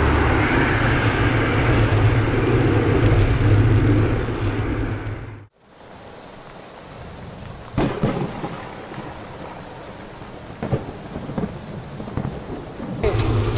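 Wind and road noise from riding a road bicycle, loud and even, fading out about five seconds in. Then steady rain with a few louder rumbles of thunder. Riding noise returns near the end.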